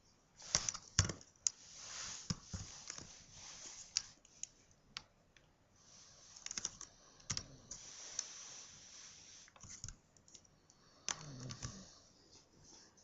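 Irregular rustling and sharp clicks of something being handled close to the microphone, with a short low sound about eleven seconds in.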